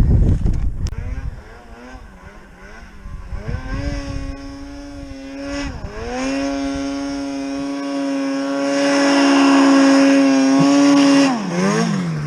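Polaris Pro RMK 800 two-stroke snowmobile engine. It eases off about a second in, wavers at lower revs, then is held at steady high revs for several seconds, with a brief dip in the middle, before dropping back near the end.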